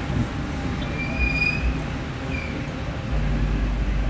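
Low, steady rumble of a heavy truck, with a short high squeal about a second in and a briefer one soon after; the rumble grows louder near the end.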